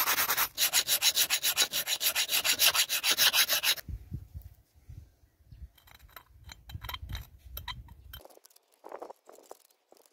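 A grey abrasive stone rubbed hard back and forth over the rusty steel of an axe head, a fast rasping of several strokes a second that stops about four seconds in. After that comes faint, scattered scratching as a pointed steel tool picks rust out of the stamped mark on the axe cheek.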